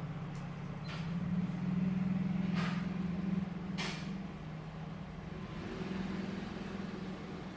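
Panasonic F-560A1 56-inch industrial ceiling fan running with a steady low hum that swells and eases, and a few short hisses over it.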